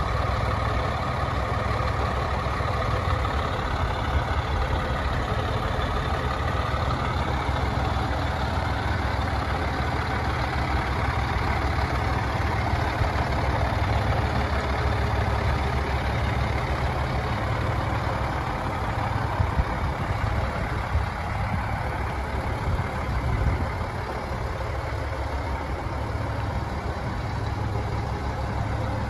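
Scania P94D300 truck's 9-litre five-cylinder diesel engine idling steadily.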